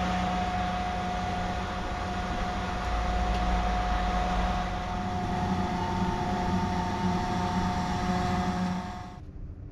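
Steady mechanical hum with a constant whining tone above it; it cuts off suddenly near the end.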